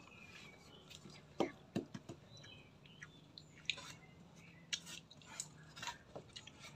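Eating with the hands: crisp fried eel being chewed and fingers scooping sambal from a dish, heard as scattered sharp crunches and clicks.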